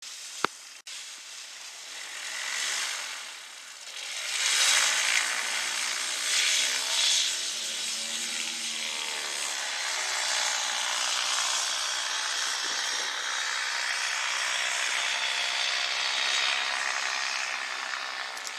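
Small propeller aircraft engine running with a buzzy drone, swelling and fading as it passes, then holding steady. A single sharp click sounds just at the start.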